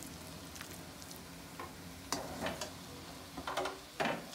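A steel spatula scrapes and knocks against a steel kadhai as cooked potato and bathua bhurji is scooped out into a glass bowl. The scrapes and knocks come more often in the second half, the loudest about four seconds in.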